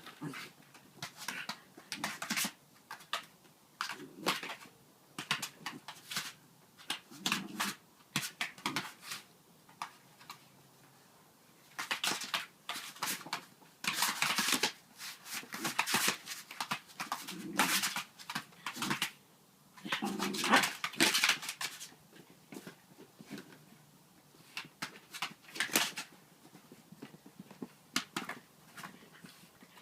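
A Danish-Swedish farmdog playing with a balloon, heard as irregular, stop-start bursts of scrabbling, knocks and rubbing, busiest around the middle and again about two-thirds in.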